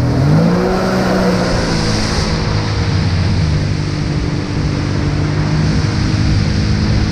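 Jet ski engine accelerating: its pitch climbs over the first second, then holds steady at speed, over a steady hiss of water spray.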